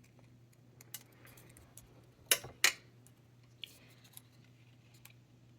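Scissors snipping through thin card twice in quick succession, with a few light clicks of paper and tools being handled.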